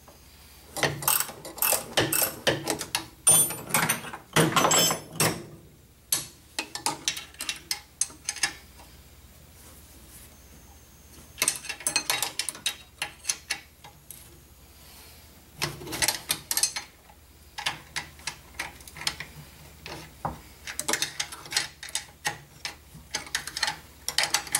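Socket ratchet clicking in repeated bursts of quick strokes, with short pauses between, as bolts are turned on the engine.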